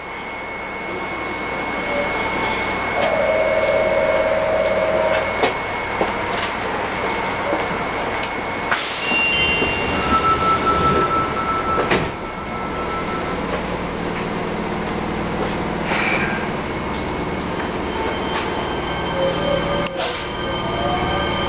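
Fukuoka City Subway 1000 series train at a station: short electronic tones sound, then the sliding passenger doors close and meet with a knock about twelve seconds in. Near the end the train starts off, with a rising motor whine.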